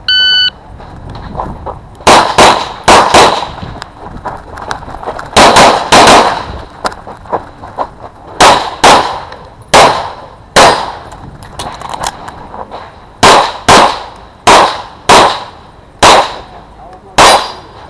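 An electronic shot timer beeps once at the start, then a CZ pistol fires about eighteen shots, mostly in quick pairs, with pauses between the groups.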